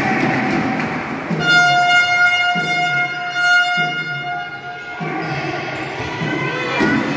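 Crowd of volleyball supporters chanting in a repeated rhythm, with a fan's horn blowing one long steady note from about a second and a half in to about four seconds.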